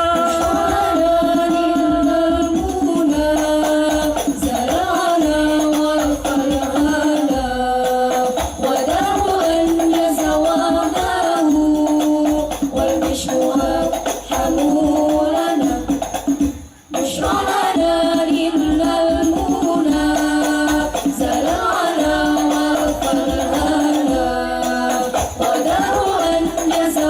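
Banjari ensemble performing: voices singing a sholawat melody over rhythmic rebana frame drums, with a momentary break about two-thirds of the way through.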